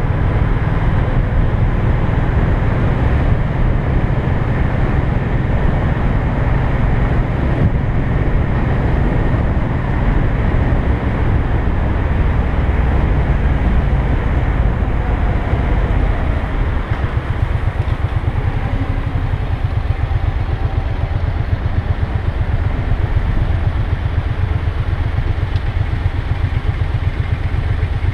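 Motorcycle engine running at road speed with wind and road noise on the rider's camera. In the second half the engine's firing pulses come through distinctly as the bike slows in traffic.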